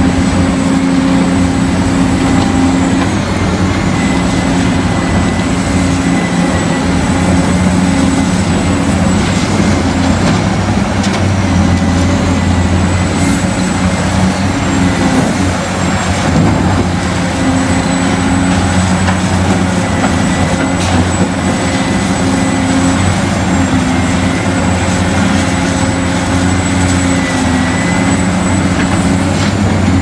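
Model RC hydraulic excavators running as they dig: a steady low engine-like drone, with a thin high whine that dips in pitch now and then.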